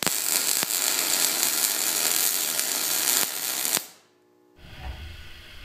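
MIG welder arc crackling and hissing steadily as a bead is run on steel, with a brief break a little after three seconds, then the arc stops just short of four seconds in. A quieter low rumble follows near the end.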